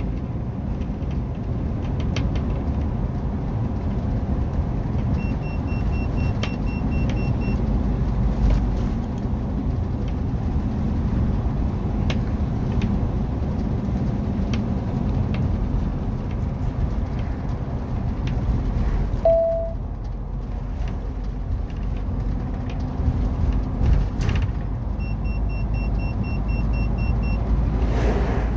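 A camper bus driving along a country road: steady low rumble of engine and tyre noise. A run of quick, faint electronic beeps comes twice, a few seconds in and again near the end, and a single short beep sounds about two-thirds of the way through.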